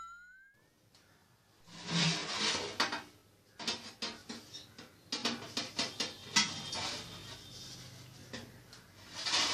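A metal plate lid clinking and scraping on a large pot as it is handled, in irregular clatters that begin about two seconds in.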